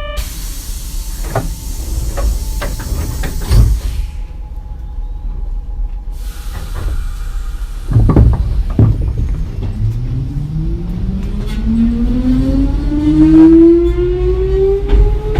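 Nose Electric Railway 1700 series electric train pulling away. There is hissing air for the first few seconds, a few sharp clunks about eight seconds in, and then the traction motors' whine rising steadily in pitch as the train accelerates.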